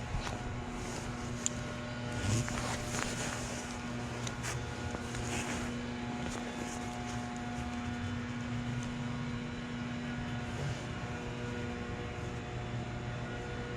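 A steady low mechanical drone, even in pitch throughout, with a few faint clicks and rustles in the first few seconds.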